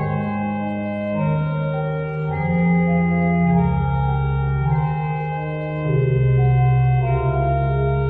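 Organ playing slow, sustained chords over a moving bass line, the chords changing every second or two.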